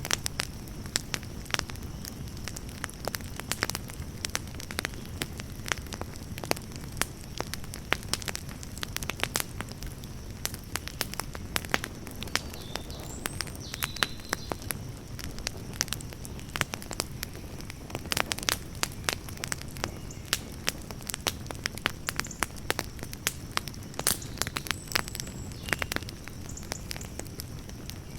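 Campfire burning, with frequent irregular sharp crackles and pops over a low, steady sound of the flames.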